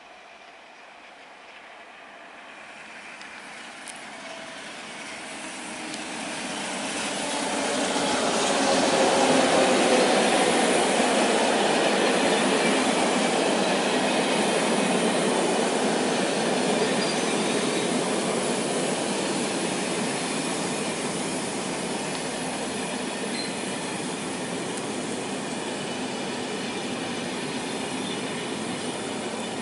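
SNCF BB 7200 electric locomotive hauling Corail coaches approaching and passing, growing louder until the locomotive goes by about ten seconds in with a tone that drops in pitch. After that the coaches roll past with a steady rush and rattle of wheels on the rails and a high wheel squeal, fading slowly.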